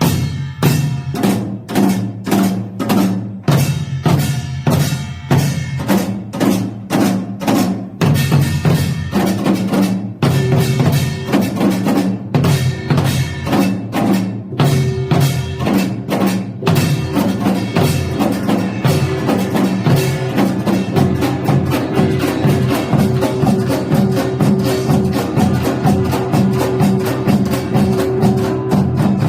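Korean samulnori percussion ensemble playing drums and gongs. Clearly separated strokes at first, quickening from about eight seconds in into a dense, fast rhythm, with a sustained metallic ring over the second half.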